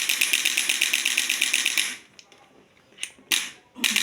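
A small motorised device tapping rapidly and evenly, about ten taps a second. It runs for about two seconds, stops, and starts again near the end.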